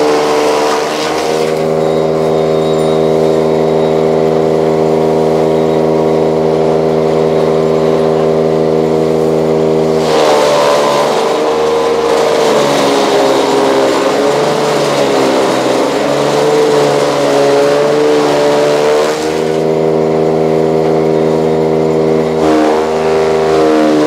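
A motor-driven chaff cutter running steadily. For several seconds in the middle its pitch wavers and sags under a rougher chopping noise as Napier grass is fed through, then it settles back to a steady hum.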